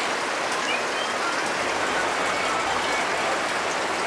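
Monsoon rain falling steadily, an even hiss without a break.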